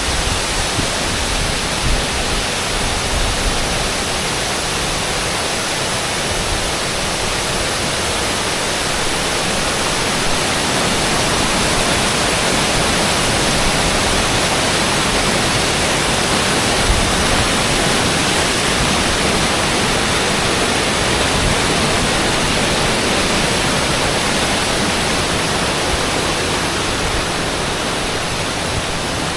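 Waterfall: a steady, full rush of water falling onto rock and into a pool, swelling slightly toward the middle.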